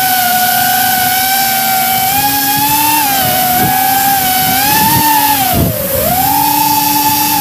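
Electric motors and propellers of a camera drone whining loudly, the pitch wavering up and down with throttle and dropping sharply a little before 6 s before climbing back. A fainter sweeping whine passes through in the middle.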